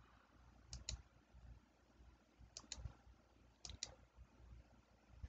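Faint computer mouse clicks: three quick pairs of clicks about a second apart, made while setting keyframes in software.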